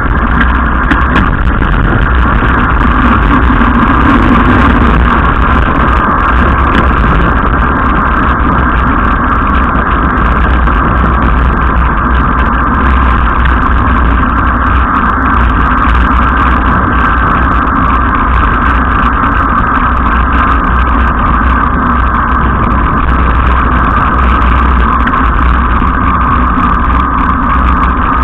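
Wheels of a downhill gravity-racing board rolling fast on wet asphalt, with wind rushing over the microphone: a steady, loud roar over a low rumble.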